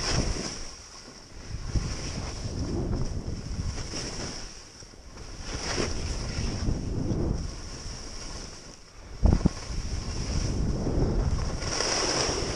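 Wind buffeting the microphone and skis hissing through snow on a downhill run, the rush swelling and fading every few seconds. A sharp thump about nine seconds in.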